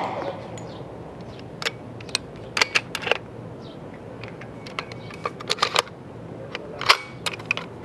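The echo of a burst from an M3 'Grease Gun' submachine gun fades, then come scattered small metallic clicks and rattles as the gun is handled. The gun has stopped firing because the magazine did not feed the rounds up properly.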